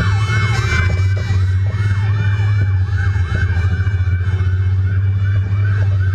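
Fire engine siren on a fast yelp, its pitch sweeping up and down about three times a second over a steady low rumble.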